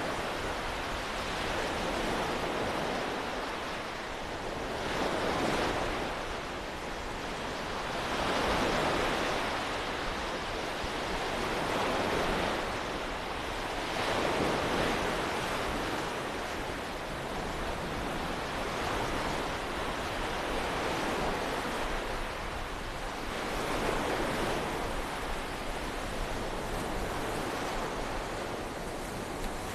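Small waves washing onto the beach of the Great Belt strait, each one swelling and falling back every few seconds, over a steady wind.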